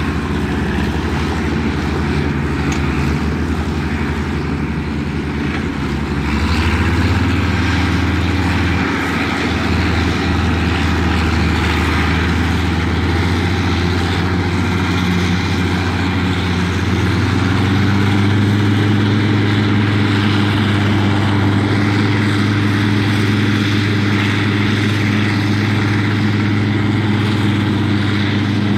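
Track Marshall crawler tractor's diesel engine running steadily under ploughing load. Its note steps up about a quarter of the way in and again just past halfway.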